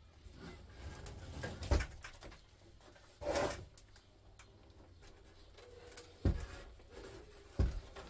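Knocks and thumps of a steel-plate electric hob being handled and flipped over on a work surface: a knock about two seconds in, a short scraping noise a little later, and two sharper thumps near the end.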